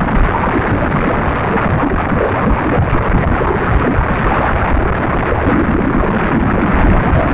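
Wind buffeting the microphone from a moving car, over a steady rumble of road noise.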